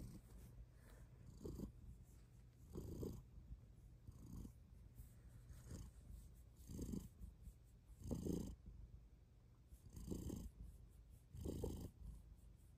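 Bengal kitten purring steadily, the purr swelling with each breath about every second and a half.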